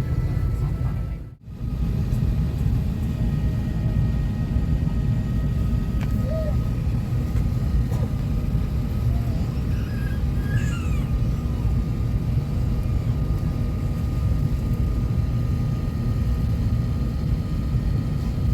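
Steady low rumble of Airbus A380 cabin noise, with a faint steady whine above it, briefly cut off about a second and a half in.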